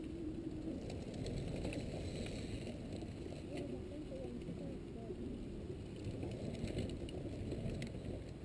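Mountain bikes coming down a dirt track, with scattered ticks and clicks over a steady low rumble.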